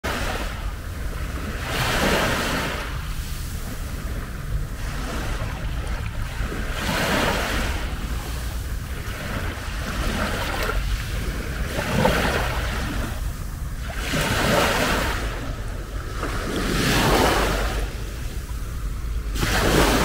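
Small Mediterranean waves breaking and washing over a pebble shore, a surge of surf about every two and a half seconds, over a steady low rumble of wind on the microphone.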